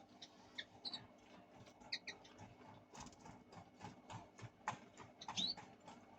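Fischer's lovebirds giving faint, short, high chirps and squeaks scattered through, with soft clicks, and one rising squeak near the end.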